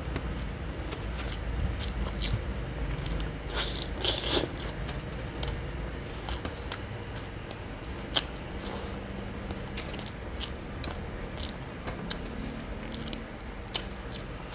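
A person chewing a mouthful of rice and boiled pork leg, eaten by hand, with short mouth clicks and smacks scattered throughout. One click a little past the middle is louder than the rest.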